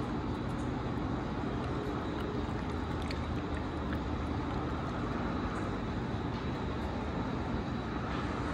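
Steady background machine hum with a faint high whine, and a few faint light clicks.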